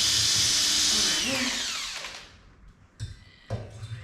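Power drill boring a pilot hole into a wooden ceiling stud, running steadily at speed, then released about a second in and winding down with a falling whine. A few light clicks and knocks follow near the end.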